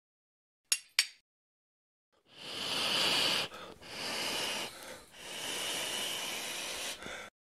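Two sharp strikes of steel on flint about a second in, then three long, steady breaths blown onto a glowing ember in tinder to coax it into flame.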